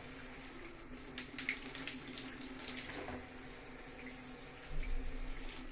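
Water spraying steadily from an electric shower head onto tiles, a continuous hiss with scattered splashes. There is a brief low rumble near the end.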